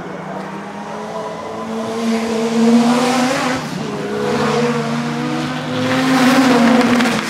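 Zakspeed Ford Capri Turbo race car's turbocharged engine accelerating hard past. Its pitch climbs, falls back about halfway through, climbs again and falls near the end, the note swelling louder each time it climbs.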